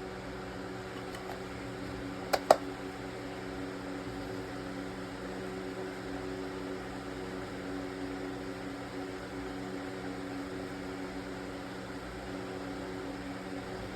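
A steady mechanical hum with a few fixed tones, like a fan or motor running, and two sharp clicks close together about two and a half seconds in.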